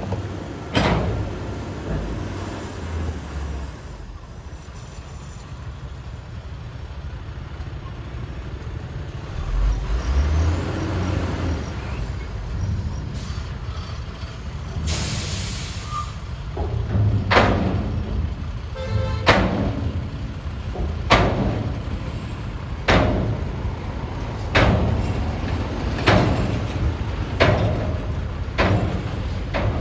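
Heavy construction machinery running steadily with a low rumble. From about halfway in, sharp bursts repeat roughly every one and a half to two seconds.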